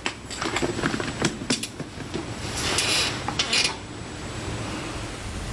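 Scattered light knocks and clicks of people moving in a room, then two brief rustles about two and a half and three and a half seconds in, over a steady low hum.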